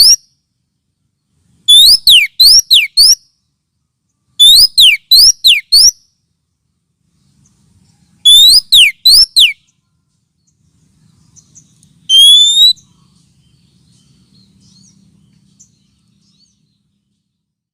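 Oriental magpie-robin (kacer) lure call: three bursts of four or five quick, sharp whistled notes a few seconds apart, then a single short note about twelve seconds in.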